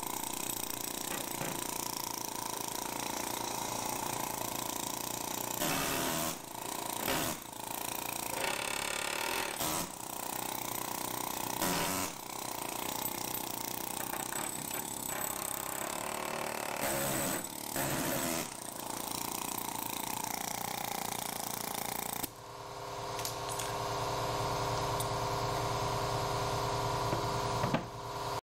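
Pneumatic air hammer chattering against a steel lower control arm, driving out the old pressed-in bushing. It stops and restarts several times. Near the end the hammering stops and a steady motor hum with a low drone fades in.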